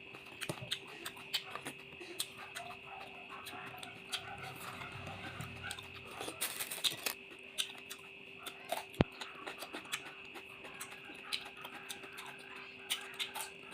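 A person eating: scattered small clicks and smacks of chewing, a few louder than the rest, over a faint steady hum.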